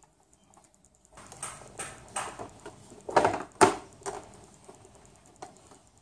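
Knocks and clatter from handling the M-Audio Axiom 49 MIDI keyboard's plastic body and key assembly during reassembly: a string of separate knocks, the two loudest a little after three seconds in, then one small click near the end.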